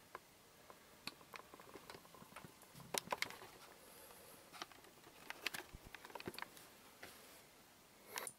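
Faint handling noise from work inside a lathe's cabinet stand: scattered light clicks, taps and rustles, with a small cluster of knocks about three seconds in and more a little after the middle.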